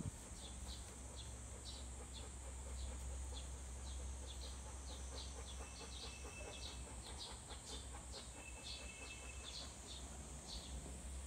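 Small birds chirping, short high calls repeated two or three times a second, with a couple of brief thin whistled notes midway, over a steady low rumble.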